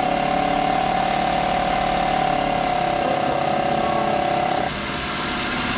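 Suzuki R06A three-cylinder engine idling with the clutch pedal pressed, a steady grinding rumble running over the idle that cuts off suddenly near the end. The noise comes only with the clutch depressed and is traced to play in the crankshaft thrust bearing.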